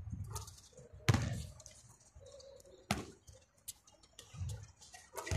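A basketball striking hard surfaces as shots are taken: a loud thud about a second in, a sharper hit near three seconds, and a few fainter knocks between.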